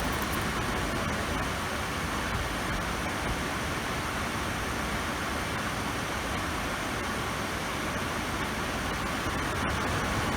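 Air purifier fan running on its strong setting: a steady, even rush of air with no change in level.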